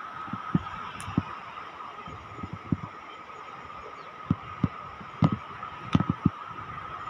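Handling noise on a phone's microphone: irregular soft low thumps, thicker in the second half, over a steady hiss.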